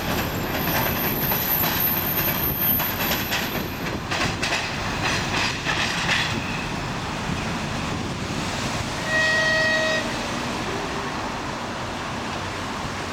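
M62 diesel locomotive hauling a flaw-detection car along jointed track, its two-stroke diesel running and its wheels clicking over the rail joints as it pulls away. About nine seconds in, a train horn blows once for about a second.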